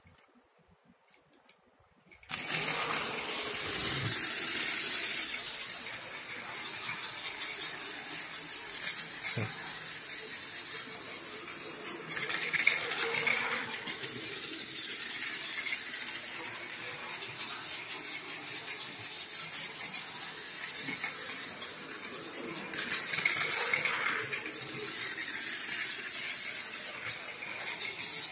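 Battery-powered toy train, a model of the Osaka Metro 400 series, running on blue plastic track. It starts about two seconds in: a steady whirring motor with rattling and clicking from the wheels on the track, swelling louder a few times as it passes close.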